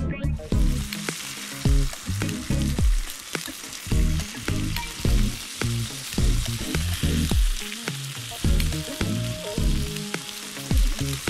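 Thin slices of beef sizzling in a hot frying pan as they are turned with chopsticks, a steady frying hiss. Background music with a steady low beat runs underneath and is the loudest part.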